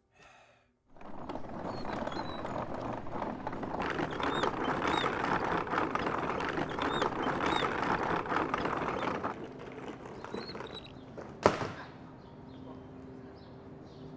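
Wheels of a wooden hand-pushed cart rolling and rattling over street pavement, with birds chirping. The rattle drops away after about nine seconds, and a single sharp knock follows near the end.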